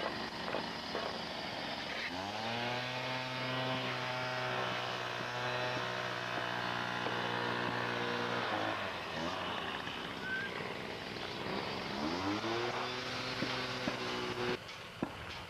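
An engine speeds up quickly and holds a steady high speed for about six seconds, then drops away. About three seconds later it speeds up again and holds until it cuts off suddenly near the end, all over a steady mechanical noise.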